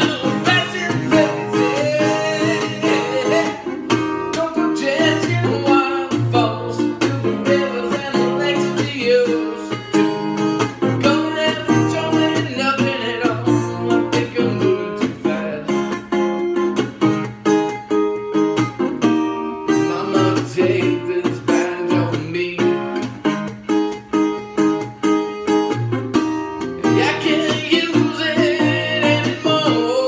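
Metal-bodied resonator guitar strummed in a steady rhythm, with a man singing over it at times.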